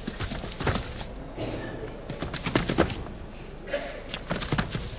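Quick footsteps on stage boards, coming in three short bursts of knocks.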